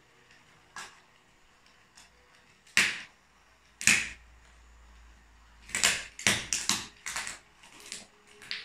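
Plastic toy train set cracking and snapping under high heels: a string of sharp cracks, two loud ones about three and four seconds in, then a quick cluster of snaps after about six seconds and a few smaller ones near the end.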